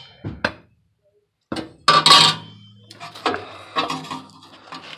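Metal furnace burner tubes clanking and scraping as they are slid back into place, with a loud clatter about two seconds in and lighter knocks after it.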